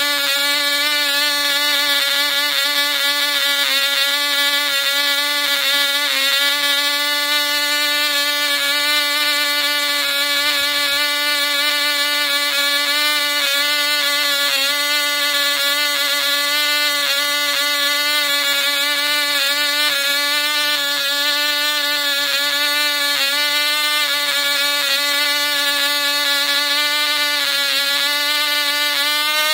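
Cox Tee Dee .049 two-stroke glow engine running at high speed on a test stand: a loud, steady, high-pitched whine that holds one pitch. Its pitch steps up slightly near the end.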